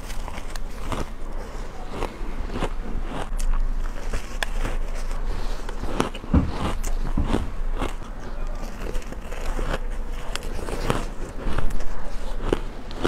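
Crushed ice being bitten and crunched between the teeth, close to the microphone: a continuous run of sharp, irregular crackling crunches, with a heavier crunch about six seconds in.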